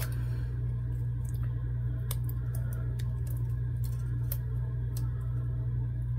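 Steady low electrical hum with faint, scattered clicks and crinkles of paper being picked at with a craft knife and peeled by hand.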